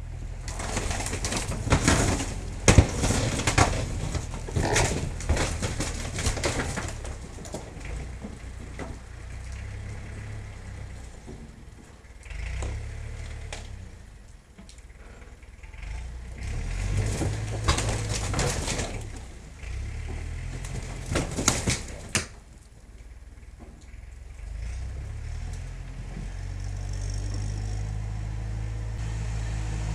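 Tractor backhoe's engine running as the arm tears into an old wooden shed: clusters of wood cracking, splintering and crashing over the first several seconds and again about 17 to 22 seconds in. The engine runs on steadily near the end.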